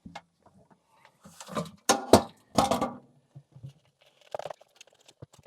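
A homemade sifter being shaken and knocked to sift wood ash. There are short scraping, rustling stretches and scattered clicks, with two sharp knocks about two seconds in.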